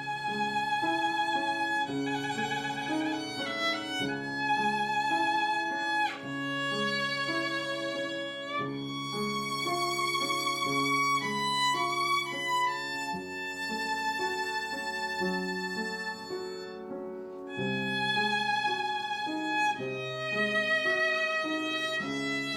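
Violin playing a slow melody of long, held notes with vibrato over a lower accompaniment.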